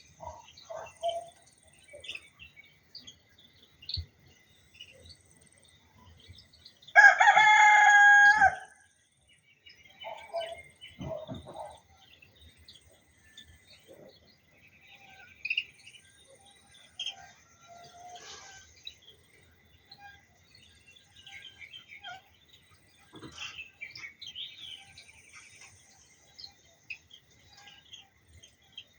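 A rooster crows once, loudly, about seven seconds in, a long call of about a second and a half. Around it, small birds chirp and call on and off.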